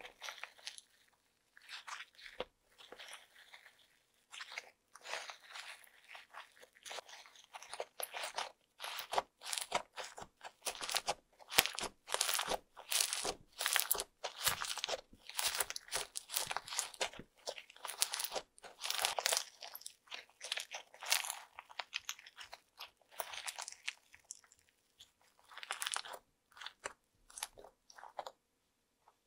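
Fluffy slime mixed with small foam beads being squeezed, stretched and kneaded by hand: dense, irregular crackling and popping, sparse at first, busiest through the middle and thinning out to a stop near the end.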